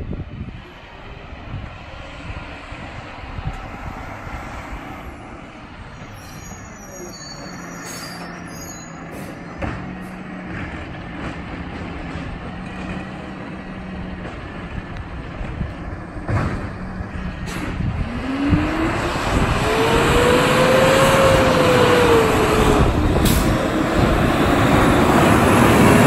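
Peterbilt 520 garbage truck with a McNeilus ZR side-loader body, its engine running as it drives closer, with short hisses of its air brakes. About two-thirds of the way through, the engine revs, its pitch rising and then falling, and it grows loud as the truck draws near.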